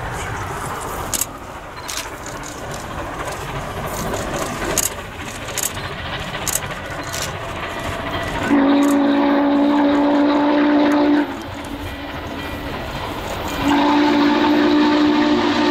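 Norfolk & Western 611, a Class J 4-8-4 steam locomotive, running past under steam, followed by two long blasts of its steam whistle. The first blast sounds about two-thirds of the way in and lasts a few seconds; the second starts near the end.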